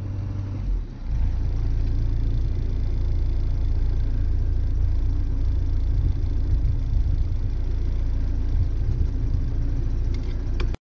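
Steady low rumble of a sailboat's inboard engine running while the boat motors under way, with a few faint clicks near the end.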